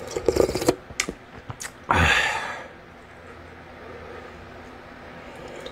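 A man eating chicken ginseng soup with a spoon: small clicks and mouth sounds in the first second, then a loud slurp of hot broth about two seconds in. A steady low fan hum runs underneath.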